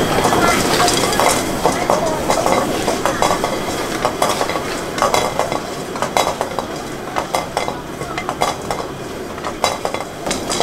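Sea snails cooking in a wok of bubbling sauce, sizzling while a wooden spoon stirs them, with many short clicks and knocks as the shells and spoon hit the metal pan.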